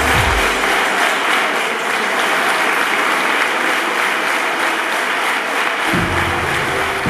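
A large crowd of schoolchildren applauding, steady dense clapping. Background music fades out in the first moment and comes back in about six seconds in.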